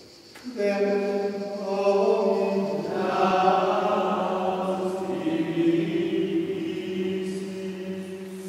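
A single man's voice chanting Gregorian plainchant in Latin, starting about half a second in and holding long, steady notes that echo in a stone church.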